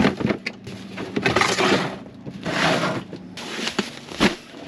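Gear in a truck camper being handled and put back after it fell over in transit: a string of knocks and scrapes with rustling swishes between them, and a sharp knock near the end.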